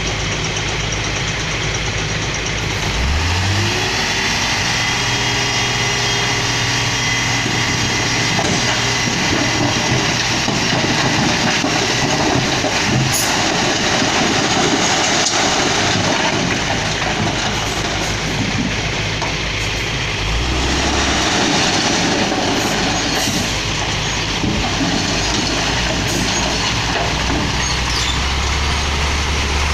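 Heavy diesel engines of earthmoving machinery running under load, with the engine note revving up about three seconds in and shifting again about two-thirds of the way through.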